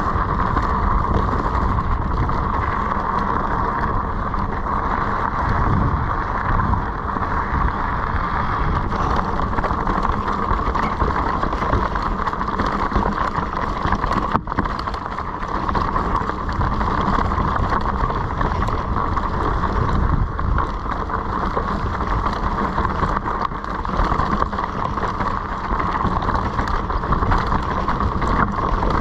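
Wind buffeting the microphone over the steady rumble and rattle of a mountain bike rolling down a rocky trail, with a brief dropout about halfway through.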